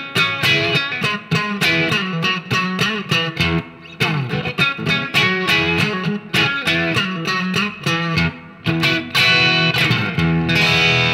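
Epiphone Les Paul Standard Pro played through a Marshall MG30FX combo on its crunch channel with reverb, in the middle pickup position with both humbuckers coil-split. Notes and chords are picked in quick succession with light overdrive and a slightly twangy, Tele-like edge.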